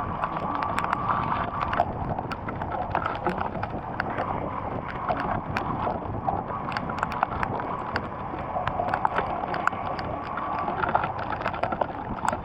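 Heavy rain falling, with many irregular drops tapping sharply close to the microphone.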